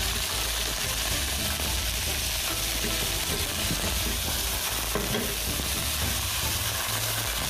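Soybean sprouts sizzling in hot oil in a wok over a high flame as they are stir-fried with a spatula: a steady frying sizzle with a low rumble underneath.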